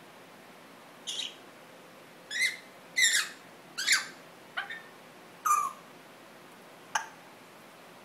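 Congo African grey parrot giving a string of about seven short, high whistles and chirps, several of them sliding down in pitch.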